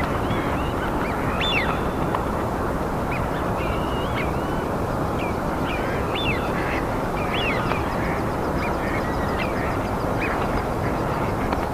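Many small birds chirping and whistling in short, scattered calls over a steady rushing noise.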